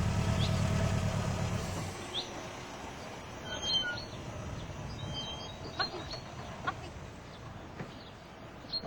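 A vehicle engine running, which cuts off about two seconds in. Birds then chirp over quiet outdoor background, with a few light knocks.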